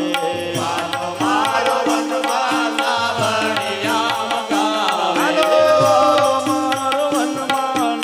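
Indian devotional music: a melody that bends in pitch over a steady, repeating beat.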